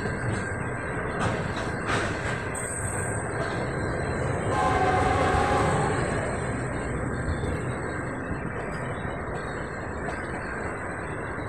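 Intermodal freight train's container wagons rolling past at speed: a steady rumble, with a couple of sharp clicks from the wheels in the first two seconds. About four and a half seconds in, a steady higher tone sounds over the rumble for about a second and a half.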